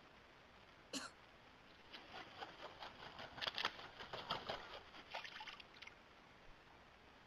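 A common black hawk bathing in a shallow puddle: one sharp click about a second in, then a few seconds of quick, faint splashes of water as it beats its wings in the water.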